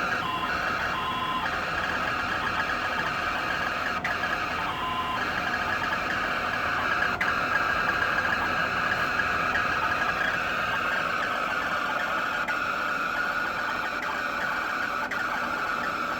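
EcoFlow Wave 2 portable air conditioner running with an abnormal noise, a steady harsh whir that persists despite a firmware update. It changes briefly near the start and again about five seconds in.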